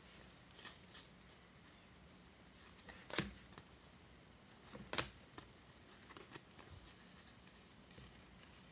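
2019 Topps baseball cards flipped through by hand, one card slid past the next: faint papery ticks and flicks of cardstock, with two louder clicks about three and five seconds in.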